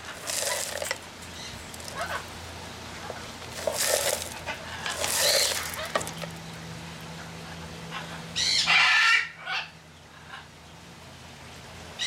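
Catalina hybrid macaw rummaging with its beak in a plastic seed feeder, seeds and shells rattling in several short bursts, the loudest a little after the middle.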